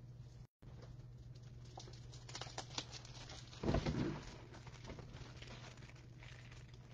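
Faint clicks, taps and rustling of handling noise, with a louder knock about three and a half seconds in, over a steady low hum.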